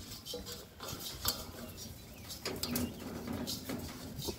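Light, scattered clicks and scrapes of a grill's regulator coupling being threaded by hand onto a propane tank's valve.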